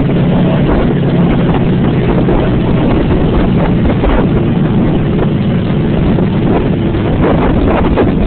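Wind buffeting the microphone, a rough, gusty rumble, over the steady hum of an engine running; the engine's low tone is clearest in the first second or two.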